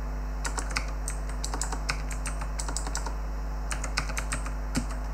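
Typing on a computer keyboard: quick, irregular key clicks over a steady low electrical hum.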